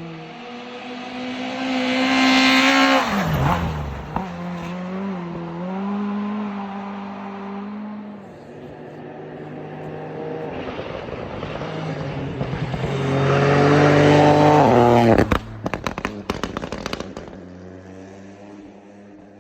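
Turbocharged rally car engine revving hard and dropping sharply in pitch when the driver lifts off about three seconds in, then running steadily before climbing again. On the second lift-off a rapid crackle of pops, bangs and turbo flutter follows for about two seconds, then the engine settles.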